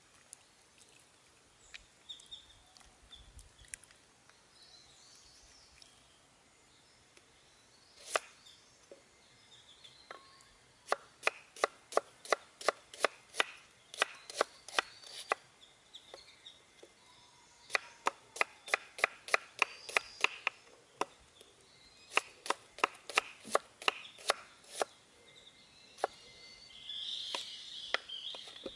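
Cleaver chopping red onion on a wooden cutting board, quick even knocks of the blade on the board at about three a second, in runs with short pauses, starting about ten seconds in. Near the end the strokes come slower as a tomato is cut.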